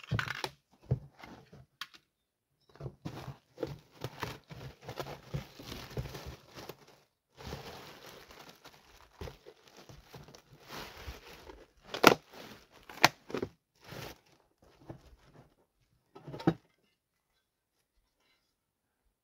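Plastic wrapping on a boxed wood stove crinkling and tearing as it is pulled open, with cardboard packaging rustling and a couple of sharp knocks about two-thirds of the way through.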